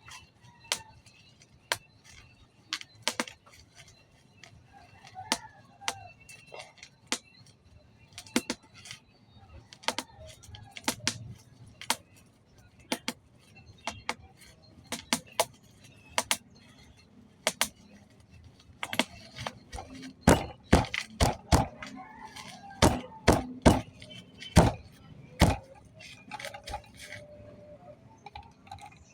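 Irregular sharp clicks and knocks of an object being handled and fitted together. They come densest and loudest from about twenty to twenty-six seconds in.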